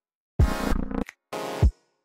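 Electronic background music: two short, abruptly cut phrases with a drum-machine beat, separated by brief silences, the second ending on a deep bass hit that drops in pitch.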